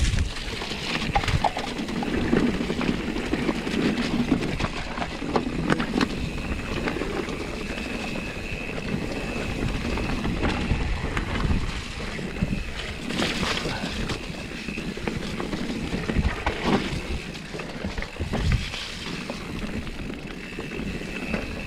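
Wind rumbling on the microphone outdoors, with scattered irregular knocks.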